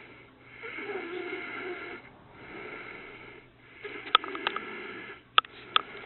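A woman snoring with her mouth open: three long, breathy snoring breaths, with a few sharp clicks in the last one.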